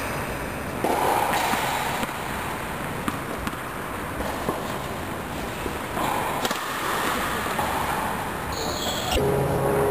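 Tennis ball bouncing on an indoor hard court and struck with a racket at the serve: a few sharp single knocks over a steady background hiss in a large tennis hall. Near the end, steady held tones come in.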